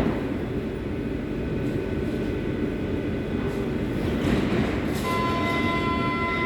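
Berlin U-Bahn H01 train with a steady low rumble; about five seconds in, a steady high tone of several notes at once sets in and holds.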